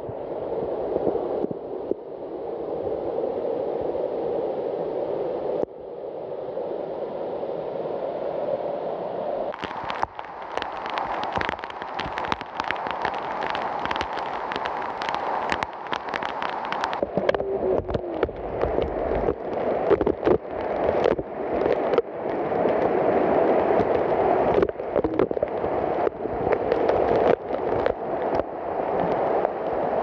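Waterfall pouring onto rocks into a pool, a steady rush of falling water. About a third of the way in, a fast irregular crackle of spray drops striking close to the microphone joins the rush and stays to the end.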